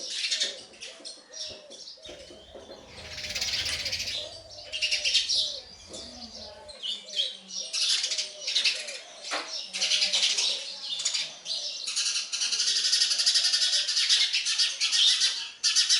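House sparrows chirping. The chirps come as short calls at first, then become a dense, continuous, high-pitched chirping from about three quarters of the way in, the begging of nestlings being fed. A low, evenly repeated call runs underneath during the first half.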